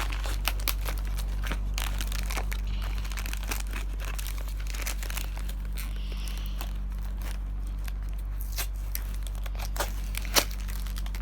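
Toy packaging being handled and torn open: irregular crinkling and tearing with scattered clicks, and one sharp click near the end.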